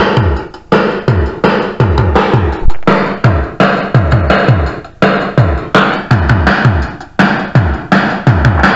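Electronic dance music played through a JBL Pulse 2 Bluetooth speaker, with a deep drum-machine kick whose pitch drops on each hit, repeating several times a second.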